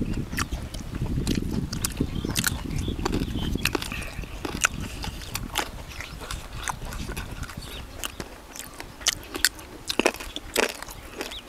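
Close-up eating sounds: chewing with many short wet smacks and clicks throughout. A low rumble underlies the first few seconds.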